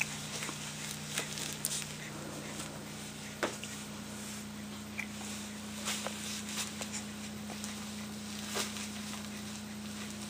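Light scattered clicks and scuffles from a young pet moving about, over a steady low electrical hum, with one brief faint squeak about five seconds in.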